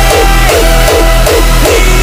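Loud electronic music with a steady, driving beat, heavy bass pulses and a synth melody.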